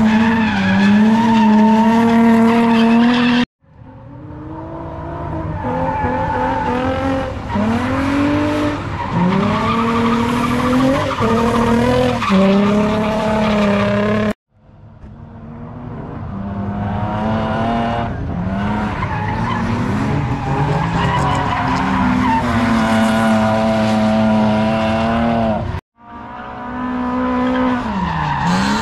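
Drift cars at high revs with tyres squealing through slides: the engine pitch holds high and dips and rises in short swoops as the throttle is blipped. It cuts off abruptly three times, and after each cut a new car's sound swells up as it approaches.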